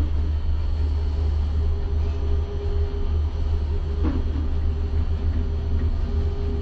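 Liebherr luffing-jib tower crane's drive running steadily under a load of about 6.5 t, heard inside the operator's cab as the jib luffs up: a deep rumble with a steady whine over it. A brief knock comes about four seconds in.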